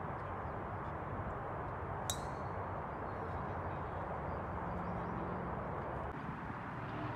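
Golf driver's metal head striking a teed ball: one sharp, ringing ping about two seconds in, over steady background noise.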